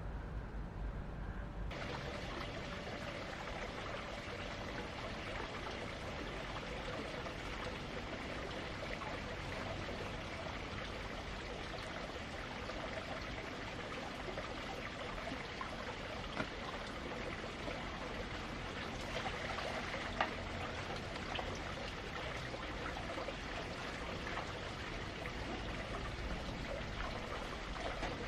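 Water running steadily, starting abruptly about two seconds in, with a couple of faint knocks along the way.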